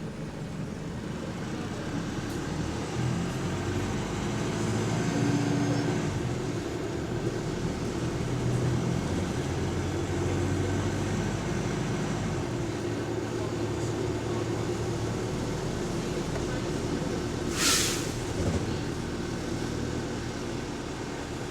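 Bus engine and drivetrain running steadily, heard from inside the bus, a little louder for several seconds early on. About eighteen seconds in comes one short, sharp burst of air hiss from the bus's air brakes, followed by a fainter one.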